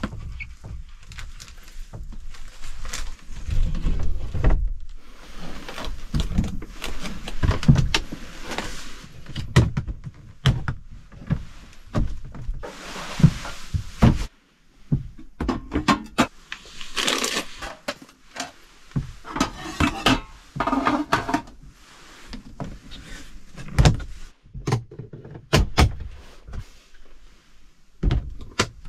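Knocks, thunks and rustling as gear is handled inside a small wooden camper shell, with a plastic storage box opened and shut.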